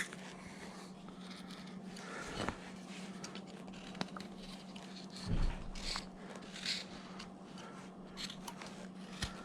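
Carving knife cutting and scraping wood in short, faint strokes, with a few small clicks as the blade rounds the carved feet.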